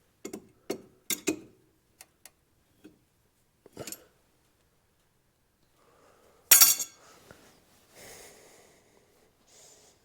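Metal tools clinking and tapping against the Polaris Ranger 800's CV axle and hub flanges, a quick run of sharp clicks then scattered ticks, with one loud ringing metal strike about six and a half seconds in, followed by soft scraping.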